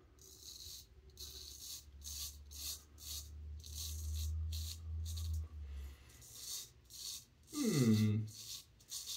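Straight razor, a River Razor 14 with a black Arkansas edge, scraping through two days' stubble in short, rapid strokes, about two a second, with pauses between runs. A low hum runs underneath for the first six seconds, and a brief falling vocal murmur comes about eight seconds in.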